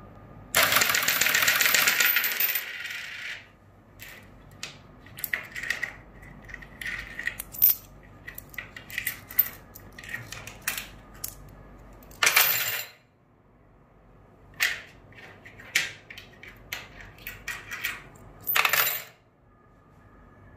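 Metal coins clinking and rattling: a loud pour lasting about two seconds near the start, then many scattered single clinks, with two more short pours about twelve seconds in and near the end.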